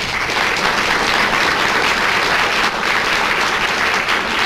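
Audience applauding, a dense, steady round of clapping.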